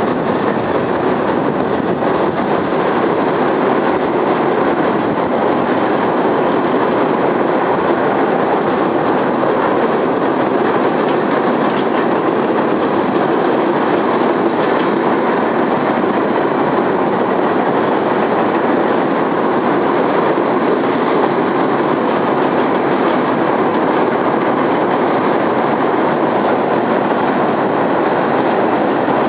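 Canadian National freight train crossing a long railway trestle: a steady, continuous rumble and clatter of its wheels on the rails that holds the same level throughout.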